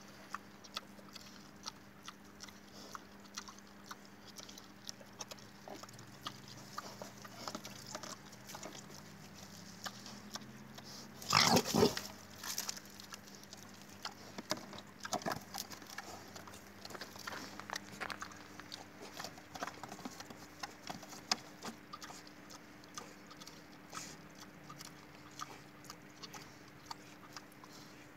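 Wild boar rooting and eating in the dirt, with many small clicks and crunches, and one louder call lasting about a second, about eleven seconds in.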